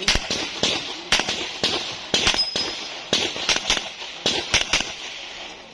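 Handgun firing a rapid string of shots, many in quick pairs (double taps), as a shooter works through a practical shooting stage.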